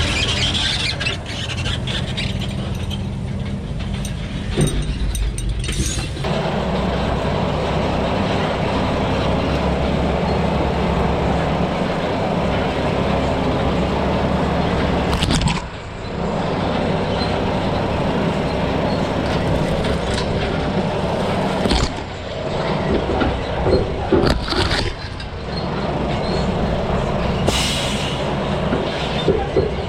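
A log truck's diesel engine running steadily on the road, with road and cab noise, briefly dropping away a few times.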